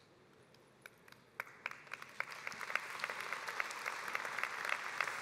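Audience applause: a few scattered claps about a second in, building within a couple of seconds into steady clapping.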